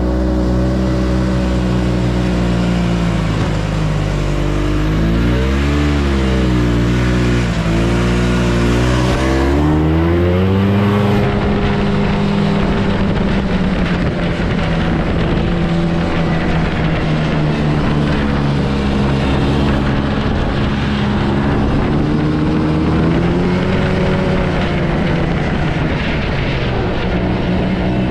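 Yamaha Bravo snowmobile's two-stroke engine running under way, its pitch rising and falling with the throttle. It dips briefly about five seconds in, then climbs about ten seconds in to a higher, steadier pitch.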